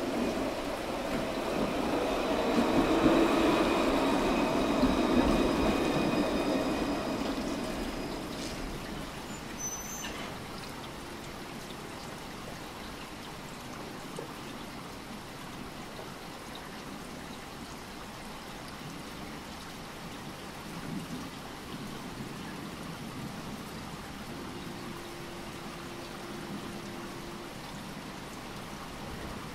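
A light-rail tram pulls into the stop with a loud rush and whining motor tones, one of them falling in pitch as it slows. It quietens by about eight seconds in, then stands with a steady hiss, with a sharp click and a short high beep about ten seconds in.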